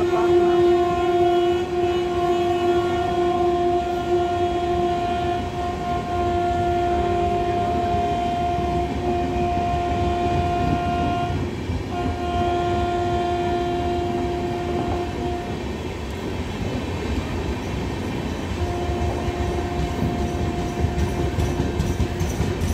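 Passenger train running past on the rails with a constant wheel rumble, its locomotive horn held in long steady blasts. The horn breaks briefly about halfway, stops for a few seconds, then sounds again near the end.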